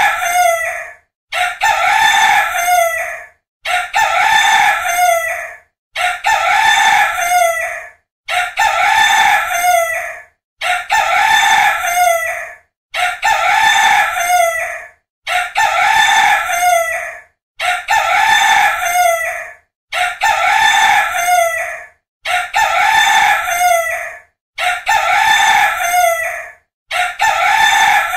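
Rooster crowing over and over, the same cock-a-doodle-doo repeated about every two seconds with a short silence between crows.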